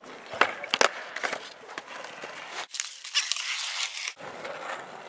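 Skateboard wheels rolling on asphalt, with two sharp clacks of the board striking the ground under a second in.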